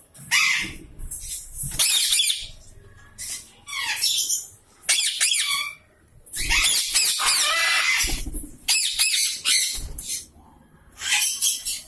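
A parrot squawking repeatedly in loud, harsh calls of about a second each with short gaps between them, the longest call lasting about two seconds near the middle.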